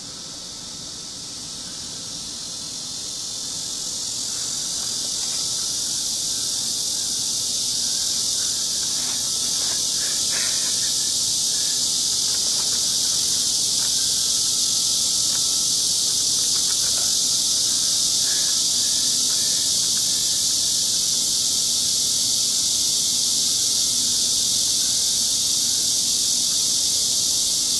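Dense insect chorus, a steady high shrilling hiss that swells over the first few seconds and then holds level.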